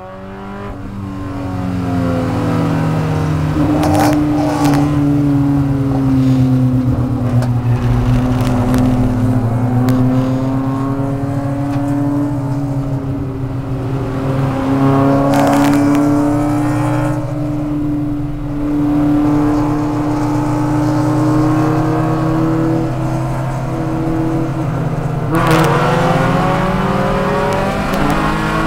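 Spec Miata's four-cylinder engine heard from inside the car, running at fairly steady high revs with small rises and dips in pitch. Brief bursts of noise cut across it about 4, 15 and 25 seconds in.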